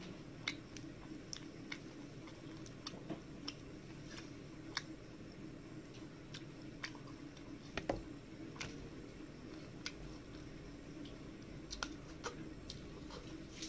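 Eating rice and curry by hand: wet chewing, with irregular mouth clicks and smacks and the soft squish of rice being mixed with gravy, over a steady low hum.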